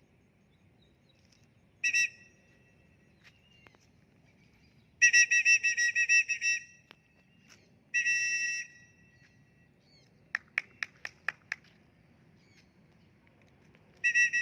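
A two-tone pea whistle blown in sharp blasts and warbling trills: a short blast, a long trill, another blast, then a quick run of about seven short pips. Another trill starts near the end. It is the handler's recall signal to call a free-flying parrot back.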